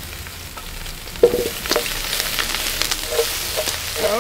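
Chopped onions sizzling and crackling in hot olive oil in a steel pan as they are stirred and tossed. There is a sharp clink against the pan about a second in, and the sizzle is louder from then on.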